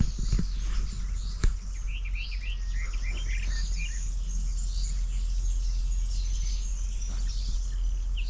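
Wild songbirds chirping and singing in short repeated phrases over a steady low rumble, with one sharp click about a second and a half in.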